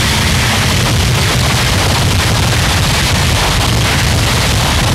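Harsh noise music: a dense wall of distorted static filling the whole range, with a fast, crackling low end, held at a steady loud level.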